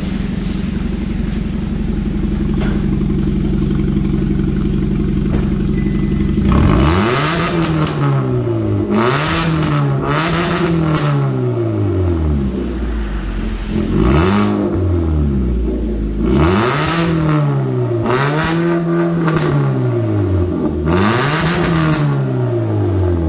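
Kia Cerato 1.6's four-cylinder petrol engine through an aftermarket Powerboom exhaust. It idles steadily, then from about six seconds in it is revved hard about seven times, each rev climbing and falling back. Crackling pops and bangs come from the exhaust as the revs peak and drop.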